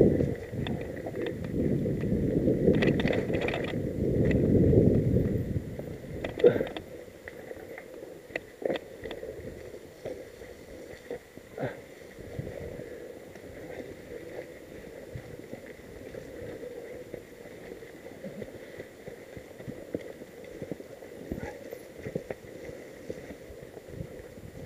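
Mountain bike on a dry, leaf-covered forest single track. A loud rumble of wind and tyre noise fills the first five seconds or so, with a sharp knock soon after. The rest is quieter crunching of dry leaves with scattered clicks and knocks from the bike.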